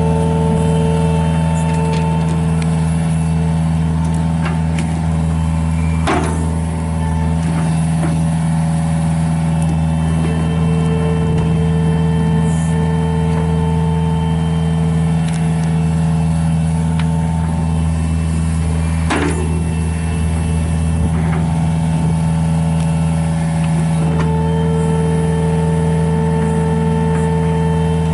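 John Deere 50G mini excavator's diesel engine running steadily. A higher-pitched tone comes and goes several times over it, and there are two sharp knocks, one about six seconds in and one about nineteen seconds in.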